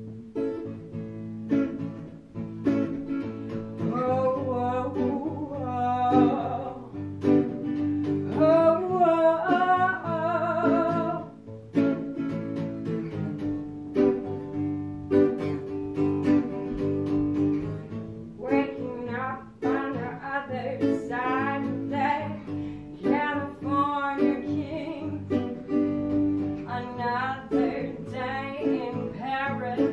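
Hollow-body electric guitar playing chords to open a song, with a voice singing over it from a few seconds in.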